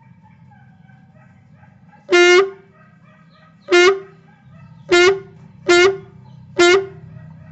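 Homemade toy sound gun sounding five short, buzzy horn-like honks, all at the same pitch. The first is the longest, about two seconds in, and the others follow at uneven gaps of about one to one and a half seconds.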